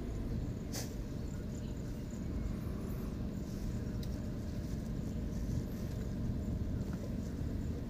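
Tata Altroz hatchback driving along a road, heard from inside the cabin: a steady low rumble of engine and tyres. A sharp click comes a little under a second in, and faint high chirps sound from outside now and then.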